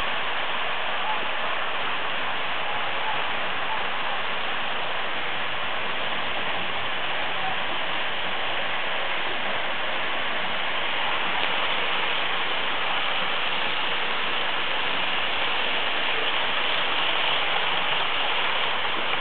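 H0 model trains running on the layout: a steady rushing hiss of wheels and motors on the metal track, swelling slightly near the end as a train passes close by.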